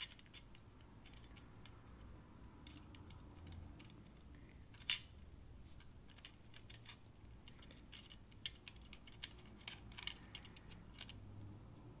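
Light metallic clicks and ticks as small screws are turned by hand into a graphics card's low-profile steel bracket, with one sharper click about five seconds in and a run of clicks near the end.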